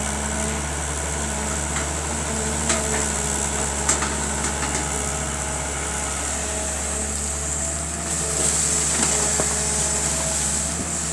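Sumitomo S265EA hydraulic excavator's diesel engine running steadily as the machine swings its upper body and arm around. There are a couple of sharp knocks about three and four seconds in, and the engine gets a little louder about eight seconds in.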